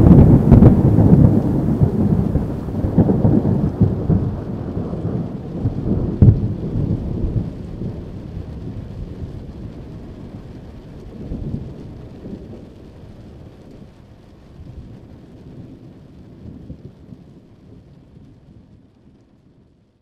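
Thunder rolling during a thunderstorm: a long low rumble, loudest at the start, with a sharper peak about six seconds in and further weaker rolls, slowly dying away, with rain falling.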